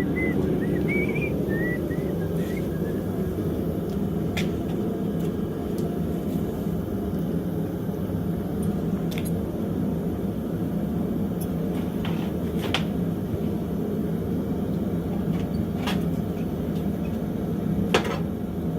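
A steady low mechanical rumble, like a machine running, with a few sharp metallic clicks and taps over it, the loudest one near the end.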